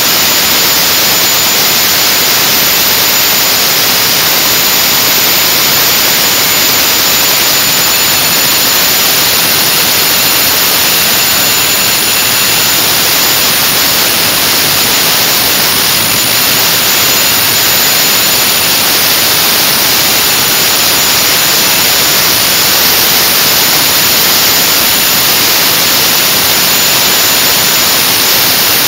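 Turbocharged engine running steadily at about 2,000 rpm under roughly three-quarters load, heard as a loud, even rushing noise with a steady high whine on top.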